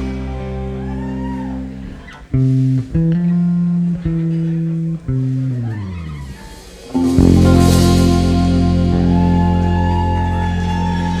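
An instrumental trio of electric bass, electric guitar and drums playing. Held bass notes give way to a few short notes that step down in pitch. About seven seconds in, a loud full chord rings out with a cymbal crash.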